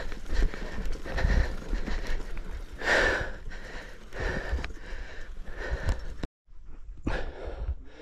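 Mountain bike on a rough enduro descent: the tyres and frame rattle and knock over uneven ground, with a heavy rumble of wind on the microphone. The sound cuts out briefly a little after six seconds.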